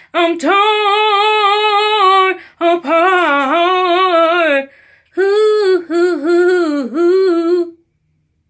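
A woman singing unaccompanied: three long, drawn-out phrases of held notes with heavy vibrato and no clear words. Her voice stops near the end.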